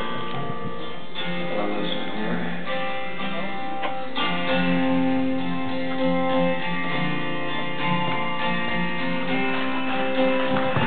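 Live band music, led by a strummed acoustic guitar with electric guitars playing along.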